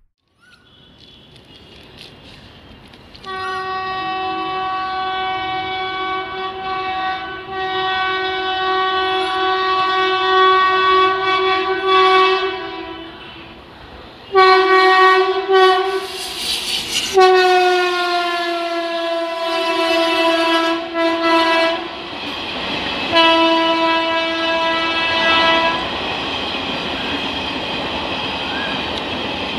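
The air horn of an electric locomotive hauling the Duronto Express sounds as the train approaches at speed: one long blast of about nine seconds, then three shorter blasts, one falling slightly in pitch. Near the end the horn stops and the coaches rush past with a steady rolling noise.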